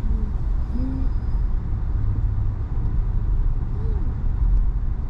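Steady low rumble of a car's engine and road noise, heard from inside the cabin.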